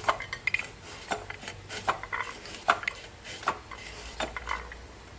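Hand-cranked rotary vegetable slicer cutting a carrot into thick slices: its blade and crank give a string of sharp metallic clicks and clacks, about two to three a second, as each slice is cut.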